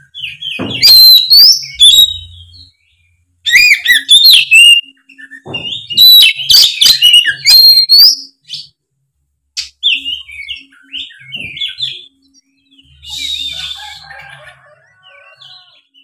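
Oriental magpie-robin (kacer) singing loud, rapid bursts of varied whistles and chirps. The song turns quieter and more broken in the second half.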